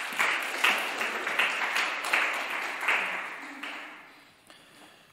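A small audience applauding as a speaker comes to the lectern. The clapping dies away about four seconds in.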